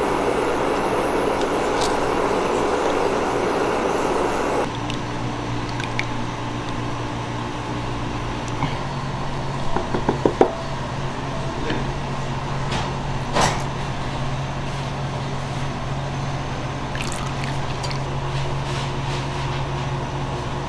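Silicone spatula stirring hot cream in a steel saucepan and then stirring it into melted chocolate in a plastic measuring cup, with a few quick taps and clicks against the containers, over a steady low hum.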